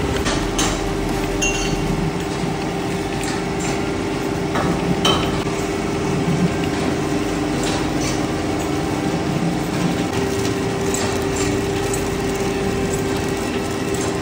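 Ice lolly flow-wrap packing machine and its roller-chain conveyor running: a steady machine hum with scattered metallic clinks and clicks.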